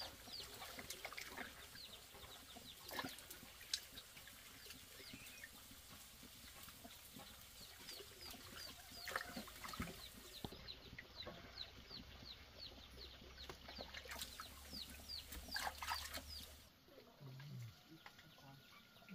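Faint chickens clucking and chirping, many short high peeps, with a few light splashes of water in a metal basin as feet are washed.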